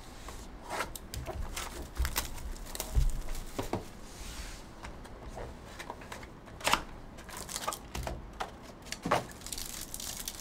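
A sealed box of 2020 Bowman Chrome Choice baseball cards being unwrapped and opened by hand: scattered crinkling and tearing of wrapping, with irregular soft knocks and taps of cardboard and cards.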